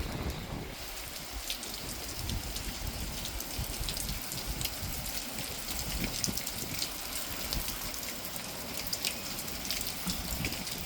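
Rain falling, with many separate drops ticking sharply over a steady patter and a low rumble underneath.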